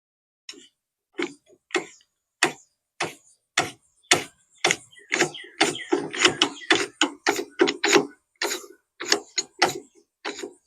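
A run of sharp metallic clicks and clinks from steel hand tools being worked on a hydraulic cylinder. The clicks come singly about every half second at first, then crowd together quickly in the middle before thinning out again.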